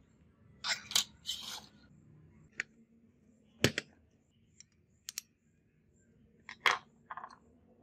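Small plastic and metal parts of a model car clicking and knocking as they are pulled apart by hand, with light handling rustle. There are several separate sharp clicks, the loudest about halfway through and near the end.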